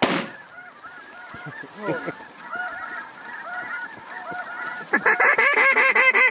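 A flock of snow geese calling, many overlapping honks at once, growing much louder and denser about five seconds in. A single loud bang right at the start.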